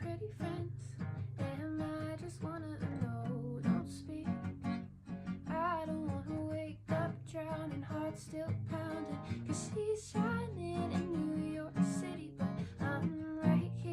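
A song played on strummed acoustic guitar, with a singing voice carrying a melody over it.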